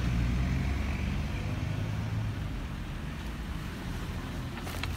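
A car driving past on a snowy street, a low rumble that slowly fades as it goes by.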